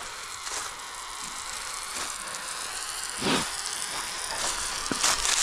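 A steady hiss that grows slowly louder, with a brief knock about three seconds in and another couple near the end.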